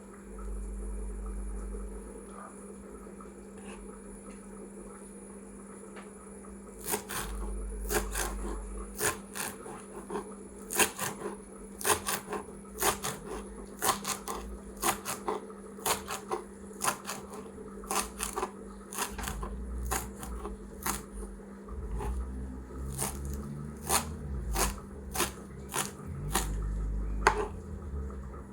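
Knife chopping fresh greens on a cutting board: irregular sharp chops, about one or two a second, starting about seven seconds in.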